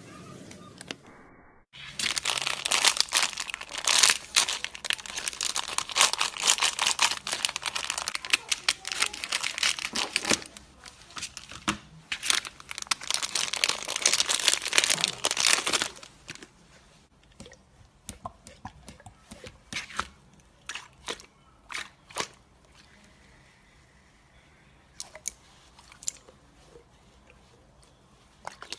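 Slime stress ball being cut open, giving a dense crunching, crackling sound for about fourteen seconds, then only scattered clicks and pops.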